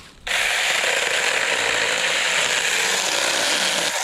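Cordless 21-volt mini chainsaw starting up about a third of a second in and running steadily as its chain cuts quickly through a small tree branch.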